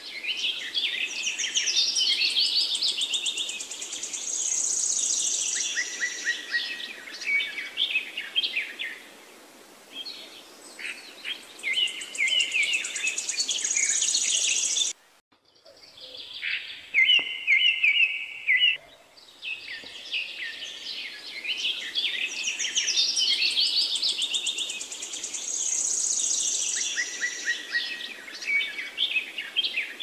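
Small songbirds chirping and trilling in a busy, overlapping chorus of high, quick notes. There is a brief sudden gap about halfway through, and the chorus then picks up again.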